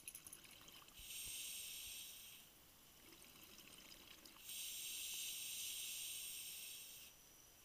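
Scuba regulator breathing underwater. There are two hissing inhalations through the demand valve, one about a second in and a longer one from about halfway. Between them comes a quieter crackling and bubbling exhalation.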